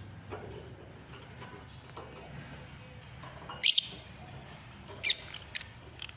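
Lovebirds giving a few short, shrill calls: the loudest a little past halfway, then two shorter ones close together near the end.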